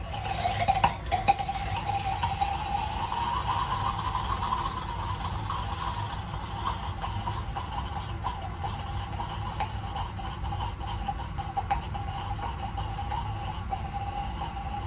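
A Skittle burning in molten potassium chlorate in a glass ignition tube, the classic 'screaming' candy demonstration. The sugar's violent oxidation gives a steady whistling scream with constant crackling, starting the instant the candy drops in, with a few loud pops about a second in.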